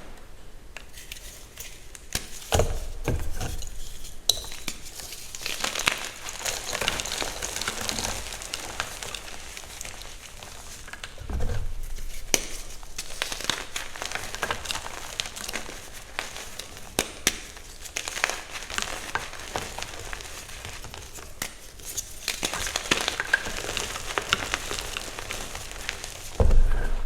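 Reformed gym chalk blocks being crushed, a dense crunching and crackling with a few dull thumps.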